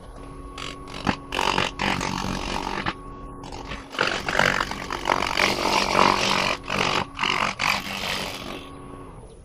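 Wood lathe running with a steady motor hum while a turning tool cuts the spinning buckeye burl, a rough scraping sound that comes and goes in short passes.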